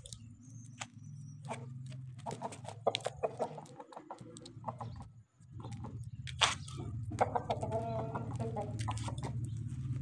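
Aseel roosters clucking, with a few short calls about two to three seconds in and again around seven seconds, over a steady low hum.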